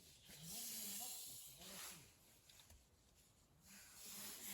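A person's slow, heavy breathing: two long breaths with a faint voiced tone, one at the start and one near the end.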